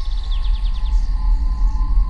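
A songbird's quick run of descending chirps that fades out about a second in, over a loud low steady rumble and a faint held tone.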